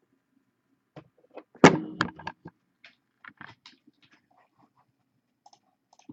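Computer mouse clicks and keyboard taps, scattered and irregular, with one loud thump about a second and a half in.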